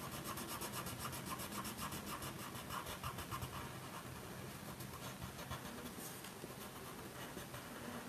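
Red watercolour pencil rubbing on paper in quick back-and-forth strokes, colouring in a small area; a little fainter in the second half.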